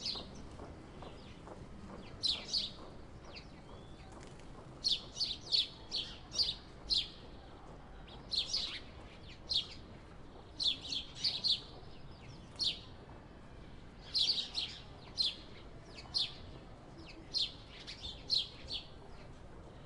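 Sparrows chirping: short, sharp chirps in irregular clusters of two to five quick calls, with pauses of a second or so between clusters.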